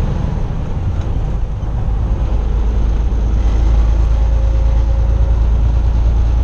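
Semi-truck's diesel engine running with road noise, heard inside the cab while driving: a steady low rumble that grows a little louder about halfway through.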